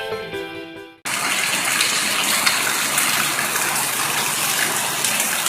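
Torrential rain pouring down, a steady dense hiss of water with many small drop impacts. It starts abruptly about a second in, after the tail of an intro music track fades out.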